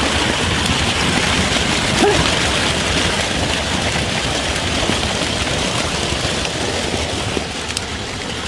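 Steady rush of storm runoff pouring through a paddy-field drainage ditch, with one brief faint voice sound about two seconds in.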